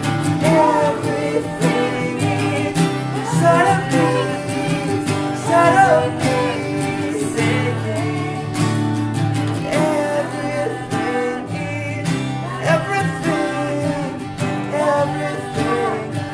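Three acoustic guitars strummed together with two or three voices singing a folk-rock song.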